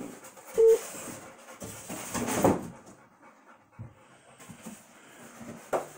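Panting breaths, with a short squeak about half a second in and a sharp click near the end.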